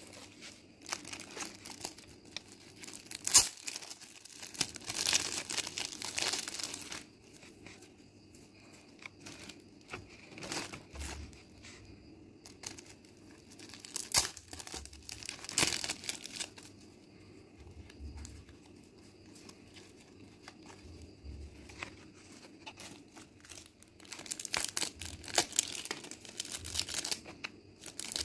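Clear plastic packaging sleeves of stickers and note pads crinkling and rustling as they are handled, in uneven bursts, with a sharp click about three seconds in.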